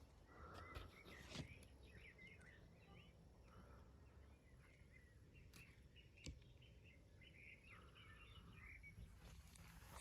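Faint birdsong: many short, quick chirps and twitters that keep on throughout, over a low background rumble, with a couple of sharp clicks.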